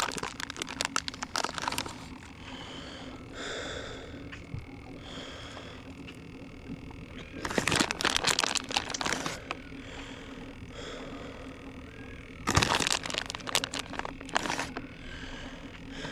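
Three bursts of crinkling, crackling and scraping as bait is handled and cut into strips, one near the start, one about halfway and one near the end. Between the bursts, faint short frog calls repeat every second or two.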